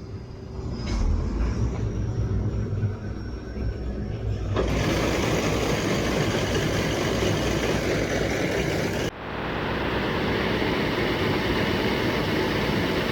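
Combine harvester starting up and running with its Geringhoff 8-row corn head: a low engine rumble that swells about a second in, then a loud, even rush of machinery noise from about four and a half seconds in, with a brief break just past nine seconds.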